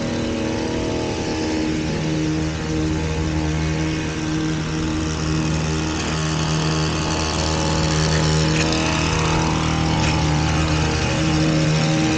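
Small gasoline engine of lawn-care equipment running steadily at constant speed, a little louder in the second half.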